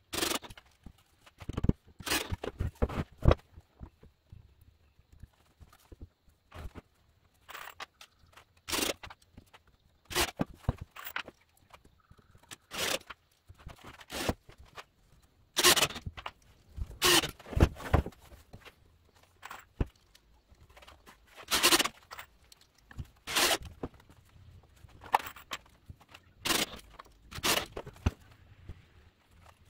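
Irregular wooden knocks, clunks and scrapes of pine 2x4 boards being handled, set down and fitted together on a wooden workbench, some coming in quick clusters.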